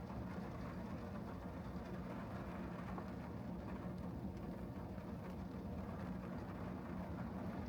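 A car driving on wet city streets: a steady low engine hum under an even hiss of tyre and road noise.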